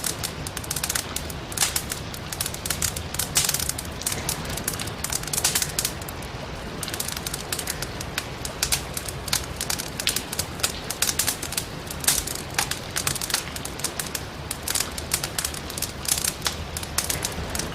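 Firewood burning in a fireplace, crackling and popping in sharp, irregular snaps several times a second over a steady low rushing noise.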